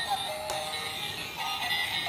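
Battery-powered plush Santa-on-reindeer toy singing its tinny electronic Christmas song from a built-in sound chip, with a sharp click about half a second in.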